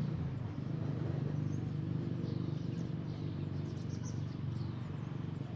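A few short, high bird chirps in the middle, over a steady low hum that is the loudest sound throughout.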